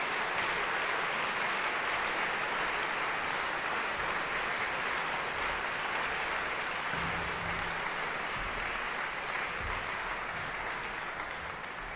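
Audience applauding steadily, the clapping beginning to fade near the end.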